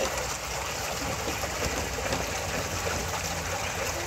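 Steady background sound of running water.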